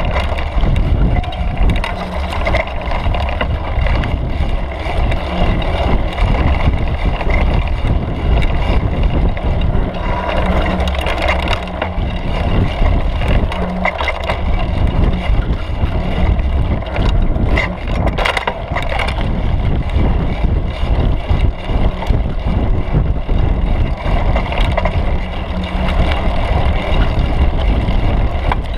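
Mountain bike riding a dirt singletrack, heard from a camera on its seat post: a steady low rumble of tyres and frame, with frequent clicks and rattles as it rolls over bumps.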